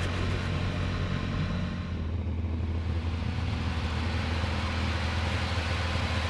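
Cessna 182P Skylane's P.Ponk-upgraded 270-horsepower piston engine and propeller droning steadily in the climb after takeoff.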